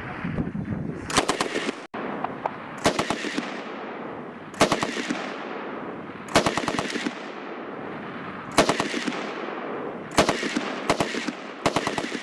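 Bren Mk II .303 light machine gun firing short bursts of a few rounds each, about eight bursts, each trailing off in an echo.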